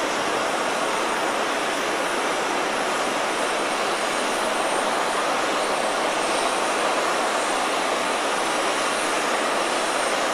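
Boeing 747 jet engines running steadily on the ramp: an even rushing noise with a thin high whine over it.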